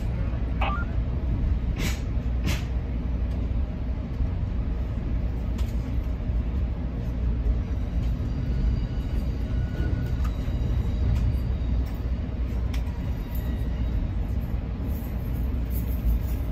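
Steady low rumble of a Pacific Surfliner passenger train, with a couple of sharp clicks about two seconds in.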